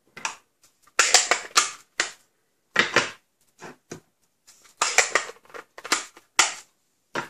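Hinged plastic ink pad cases being handled and snapped shut: a series of sharp plastic clicks and snaps in small clusters.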